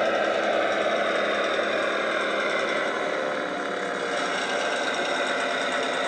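MAN Schienenbus (German railbus) diesel engine sound, played by a DCC sound decoder through a small EM2 speaker in a model railcar, running steadily as the model moves along the track. The engine note dips slightly about halfway through.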